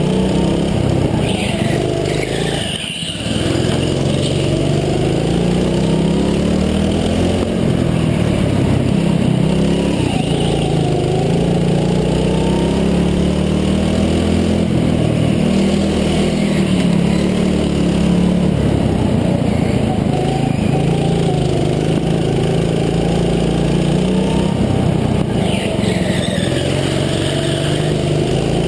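Go-kart engine running under the driver, its revs repeatedly rising and falling as the kart speeds up and slows, with a brief drop about three seconds in.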